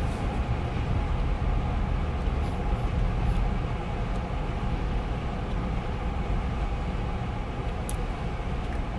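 Steady low rumble of a moving vehicle heard from inside the cabin: road and engine noise with no change in pace.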